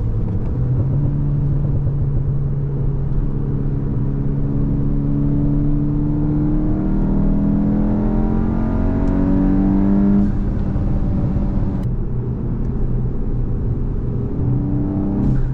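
Volkswagen Mk8 Golf GTI's turbocharged 2.0-litre four-cylinder pulling under load, its note climbing steadily for several seconds and then dropping abruptly about ten seconds in. It runs steadier and lower for a while, then rises briefly and drops again near the end.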